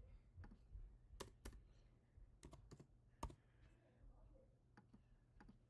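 Faint, irregular keystrokes on a computer keyboard, about a dozen scattered clicks as text is typed and edited.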